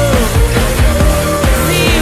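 Rock-pop song playing, with a steady drum beat and a held melody line that slides down.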